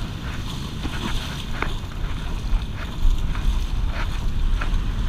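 Wind buffeting the microphone over surf washing around the wader's legs, a steady rushing with a heavy low rumble that grows stronger about three seconds in.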